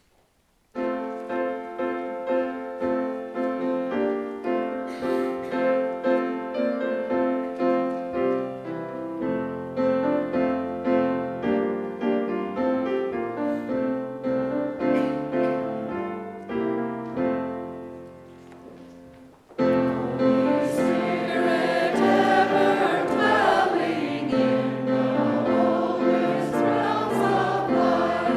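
Piano playing a slow introduction, each note struck and fading, then from about two-thirds of the way through a group of voices singing together with the piano.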